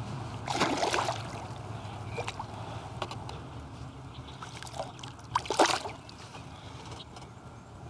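Water splashing and sloshing beside a kayak: two louder splashes, one about half a second in and one about five and a half seconds in, with small drips and ticks between.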